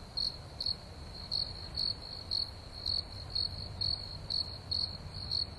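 Cricket chirping: short chirps at one high pitch, about two a second, over a low steady rumble. It is the stock 'crickets' sound of an awkward silence.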